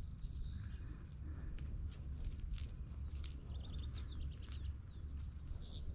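Steady high-pitched insect drone over a low rumble, with a few faint high chirps and small clicks about halfway through.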